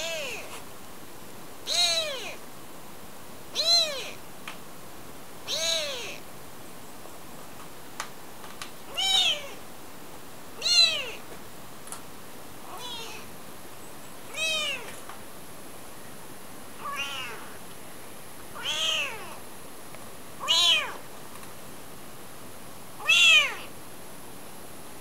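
Very young kitten mewing repeatedly: about a dozen short, high mews, each rising and then falling in pitch, roughly every two seconds.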